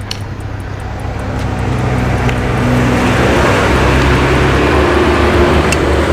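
A motor vehicle engine running close by, growing louder over the first three seconds and then holding steady, with a few light clinks of a spoon against a ceramic bowl.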